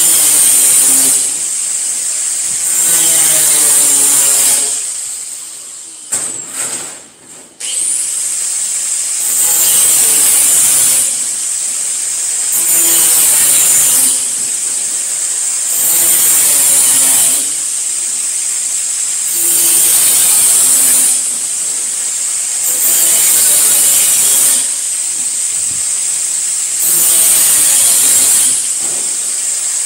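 Electric angle grinder cutting sheet metal in repeated passes: about every three and a half seconds the disc bites in and the sound gets louder for a second or two, dropping back to the motor running freely in between. About six seconds in the grinder winds down almost to a stop, then starts up again a second or so later.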